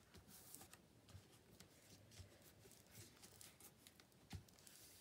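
Near silence with faint rustling and light taps of paper and card being handled, and one soft knock about four seconds in.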